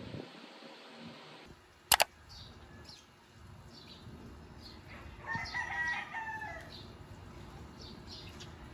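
A rooster crowing once, a drawn-out call about five seconds in, with small birds chirping in short high notes throughout. A sharp double click about two seconds in.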